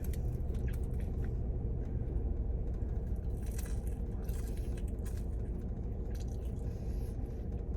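A steady low rumble with a faint hum, with scattered light clicks and scrapes as of small objects being handled.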